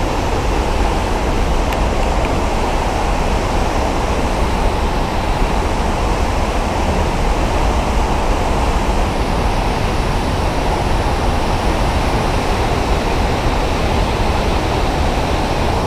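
Steady, loud rush of a nearby waterfall: an unbroken wash of falling water with a heavy low rumble.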